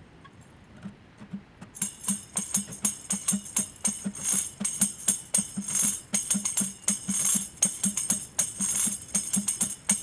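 Tambourine (pandero) shaken and struck in a steady cueca rhythm with acoustic guitar strumming, coming in about two seconds in after a quiet start.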